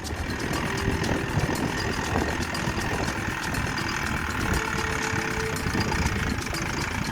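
Farm tractor engine running steadily as it pulls a plough across a field, getting a little louder in the first second.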